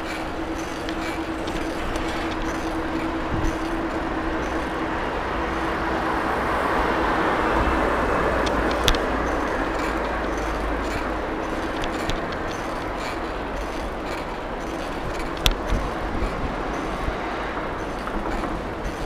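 Street traffic and road noise heard while riding a bicycle: a steady rushing that swells around the middle, with a few sharp clicks.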